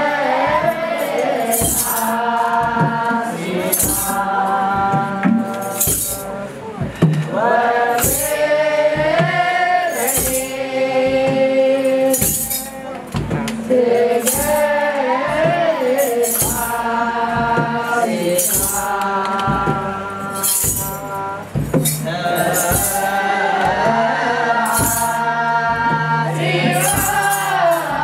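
A group of voices singing a melody together in phrases, over a steady beat of a drum and jingling hand percussion.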